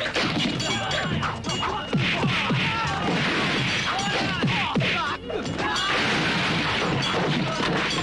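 Action-film fight soundtrack: music under a dense run of blows, crashes and shattering.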